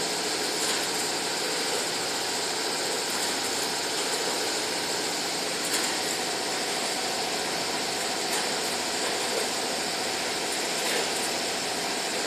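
Conveyors and multihead weigher of a plastic-parts packaging line running: a steady mechanical noise with a thin high whine and an occasional light click.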